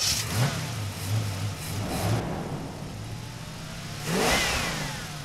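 Intro sound effect of a sports car engine revving and accelerating, with swells of rushing noise; the loudest sweep comes just after four seconds, its pitch falling away like a car speeding past.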